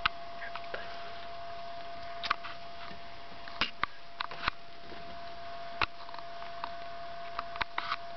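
Fifteen-day-old kittens snuffling and making small clicking mouth sounds close to the microphone, in scattered short clicks, about nine in all, over a steady faint hum.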